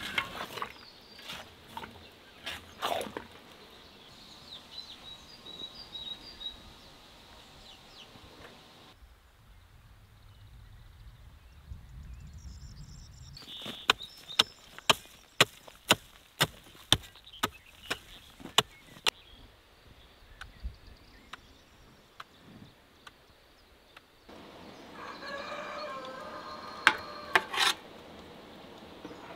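A hand hoe striking dry soil in a run of about a dozen sharp, regular chops, roughly two a second, in the middle. Chickens cluck in the background.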